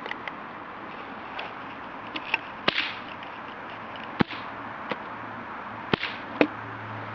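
Homemade stun gun built from a disposable camera's flash circuit, its charged capacitor discharging in sharp spark snaps: several irregular cracks, the loudest four a second or more apart, with smaller clicks between.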